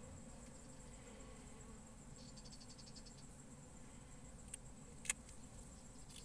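Faint steady hum of honeybees crowding an open hive's frames. About two seconds in comes a brief run of fast, even ticking, and later two sharp clicks, the second of them the loudest sound.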